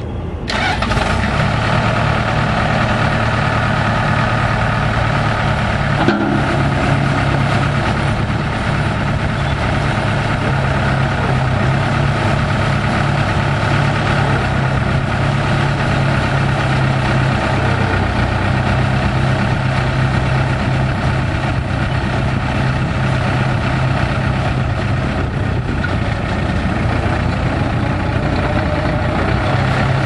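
Komatsu D39E bulldozer's diesel engine coming up about half a second in, then running steadily while the dozer drives slowly, with a single knock about six seconds in.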